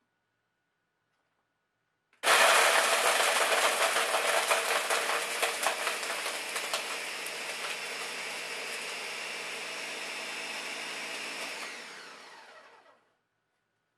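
Ninja countertop blender switched on about two seconds in, crushing ice: loud clattering at first, settling into a smoother, steadier run as the ice is ground to snow, then winding down and stopping near the end.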